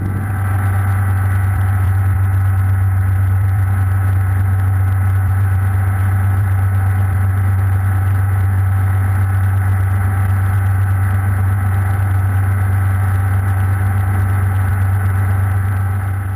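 Hughes 269B light helicopter heard from inside its cockpit: a steady, unchanging low drone of the piston engine and rotors with a higher whine over it, easing off slightly near the end.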